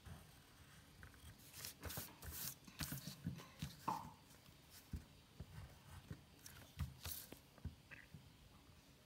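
Faint, irregular taps, scratches and paper rustles from hands drawing with a pencil and rubbing an eraser on a sheet of paper.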